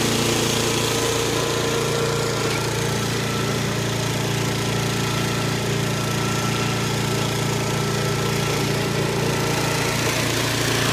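Snapper riding mower's small engine running steadily at an even speed.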